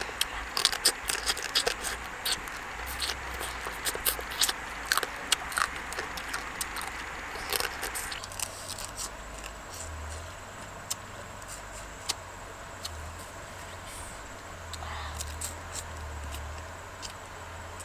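Someone eating cooked crab by hand: the shell cracking and the meat being sucked out, a close run of sharp clicks and cracks that thins out after about eight seconds.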